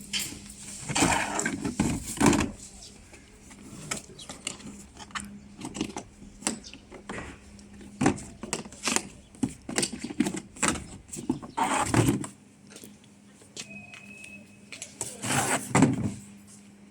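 Tools and gear being handled and unloaded: an irregular run of knocks, rattles and scrapes over a steady low hum, with the low rumble underneath dropping away about twelve seconds in.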